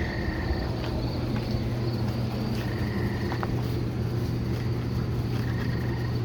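A steady low engine hum, like a small vehicle running at an even speed.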